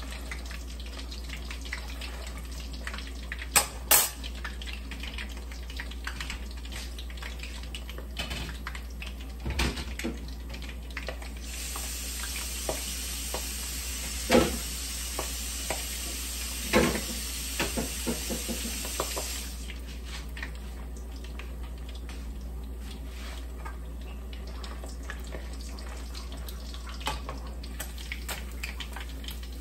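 Milkfish sizzling and crackling in hot oil in a wok, with a few sharp knocks of a metal spatula against the pan. A louder hiss holds for several seconds in the middle.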